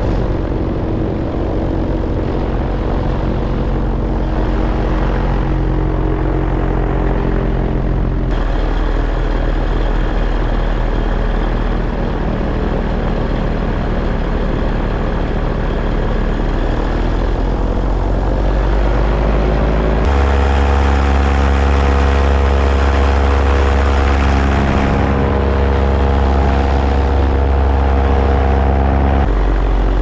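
Paramotor engine and propeller running steadily in flight, with wind on the microphone. A little past the middle the engine's pitch climbs as the throttle opens. The tone changes abruptly a few times where clips are joined, and it is loudest in the last third.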